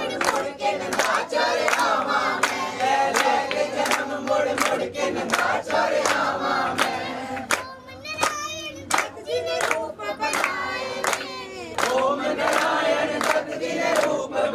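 A young girl singing a devotional song in praise of Bapu, with vibrato on held notes about eight seconds in, while several people clap along in a steady rhythm.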